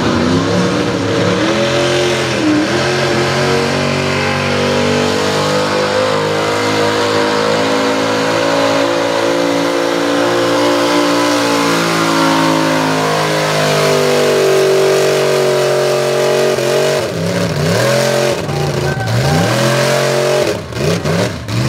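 Lifted 1971 Ford pickup's engine running hard under load while dragging a weight-transfer pulling sled, its pitch held high with a slow climb midway. About 17 seconds in it breaks into a few revs that rise and fall.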